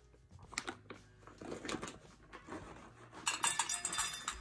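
Clinking and clattering of a cat's food bowl while the cat is fed: a few scattered clinks, then a dense rattle lasting about a second, starting about three seconds in.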